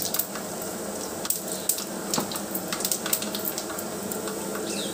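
Whole spices (bay leaves, cardamom, cloves, cinnamon, star anise, mace and black cumin) sizzling in hot oil in a pot: a steady hiss with many scattered sharp crackles as the spices temper.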